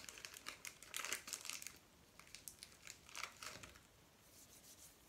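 Plastic wrapping of plasticine crinkling and rustling as it is handled, in quiet irregular bursts that fill the first four seconds, with a few fainter crinkles near the end.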